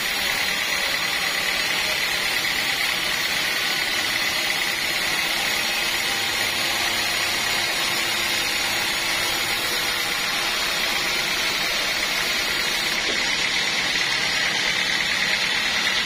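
Band sawmill running steadily, its blade cutting lengthwise through a teak beam: a continuous hiss of the cut under a steady high tone from the blade and machine.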